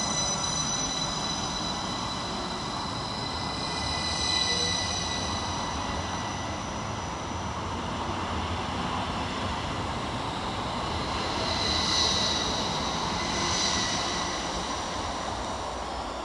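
Northern Class 333 electric multiple unit pulling away past at close range: a steady rush of wheels on rail with a high electric traction whine in several tones, swelling gently a few times.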